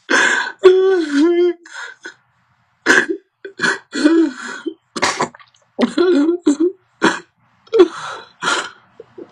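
A man sobbing aloud: long wavering wails near the start, then a run of short, choked sobs and gasping breaths.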